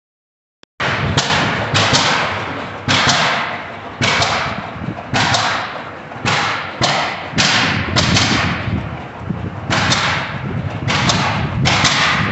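Large antique tractor's engine running slowly under way. Its exhaust gives a sharp, loud bark every half second to a second at uneven spacing, each bark trailing off, starting abruptly less than a second in.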